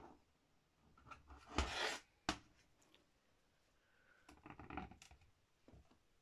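A plastic Škoda Superb hubcap being handled on a wooden floor: a scraping rustle and a sharp knock about two seconds in as it is turned over, then a run of light rubbing and tapping as a hand moves over its back.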